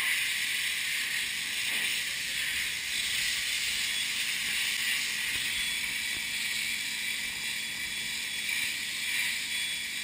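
High-pressure washer jet hissing steadily as it sprays against the finned tube block of a ship's cooler.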